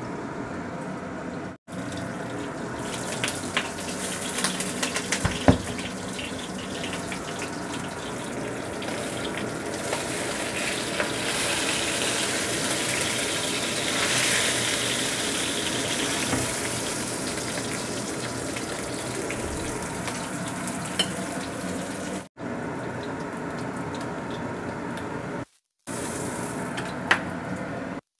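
Whole fish frying in hot oil in a wok, a steady sizzle with scattered spatula clicks and scrapes. The sizzle grows louder around the middle as the fish is turned in the oil.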